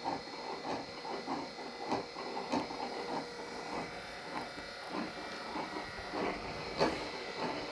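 Two Elektra LBO rotating beacons running, their small electric motors and rotating reflector drives giving a steady whine with uneven clicking a few times a second. One louder click comes near the end.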